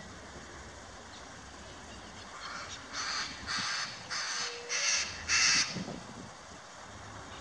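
Parakeet giving a quick run of about five harsh squawks, the last the loudest.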